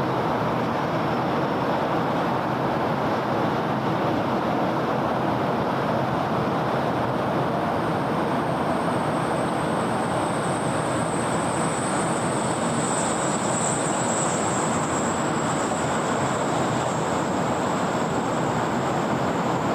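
Steady city road-traffic noise, an even wash of passing vehicles and tyres. A thin high whine comes in about halfway through and is strongest about two-thirds of the way in.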